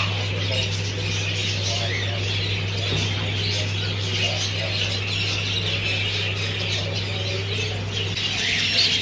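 Many birds in a bird shop chirping and squawking together in a dense, continuous chatter, over a steady low hum.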